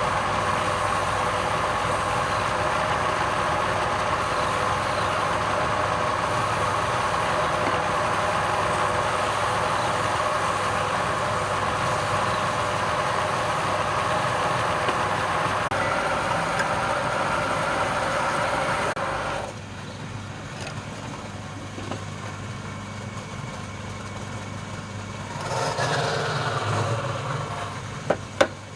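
Wood lathe running, with a steady hiss of work on the spinning piece that stops about two-thirds of the way through, leaving a lower motor hum. A louder rasping stretch follows near the end, then a few sharp clicks.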